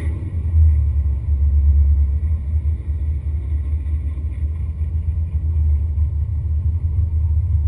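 A deep, steady low rumble, almost all of it very low in pitch, with no rising engine note.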